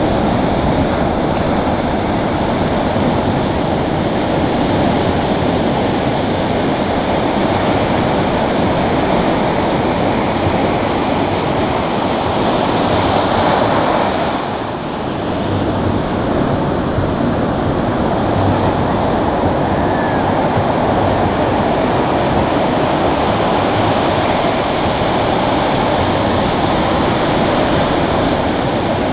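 Ocean surf breaking and washing up the beach: a steady, loud rush of water that swells about halfway through and eases for a moment just after.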